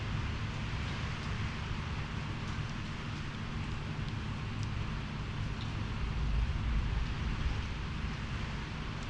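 Storm wind rushing and gusting against the microphone over a steady hiss of rain, with a stronger gust about six to seven seconds in.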